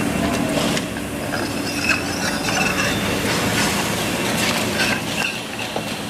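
Steady running-machinery noise of a machine shop, with scattered light metallic clinks and ticks from steel parts being handled while a hydraulic chuck is fitted onto a lathe spindle.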